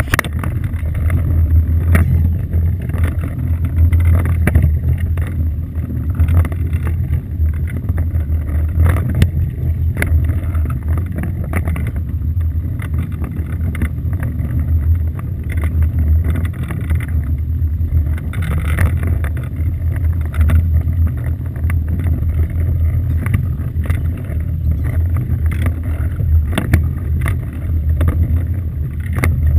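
Small fibreglass fishing boat on choppy inlet water: a steady low rumble with frequent short knocks and slaps as the hull and mounted camera take the chop.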